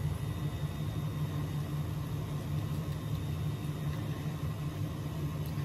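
A steady low machine hum with no distinct events, the room's background noise.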